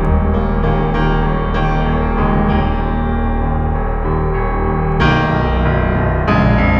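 Background music: slow, held keyboard chords, with a new chord struck about five seconds in.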